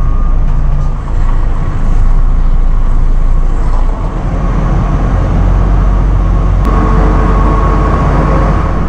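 Semi-truck's diesel engine running with a steady low rumble, heard from inside the cab as the truck rolls slowly forward.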